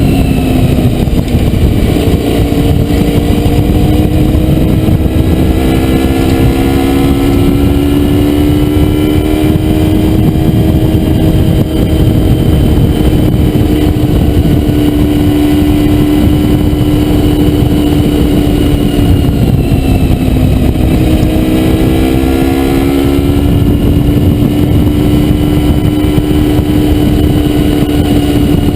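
Honda VFR400R's V4 engine running at steady high revs under way, with a heavy low rush underneath. The revs drop briefly about two-thirds of the way through and then climb back.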